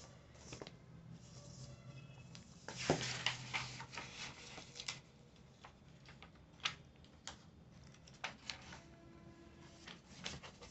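Comic book pages being turned and handled by hand: paper rustling and flapping in short bursts, loudest about three seconds in.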